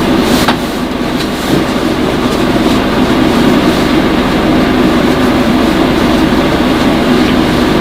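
Steady rumble and running noise of a moving vehicle, with a few faint clicks.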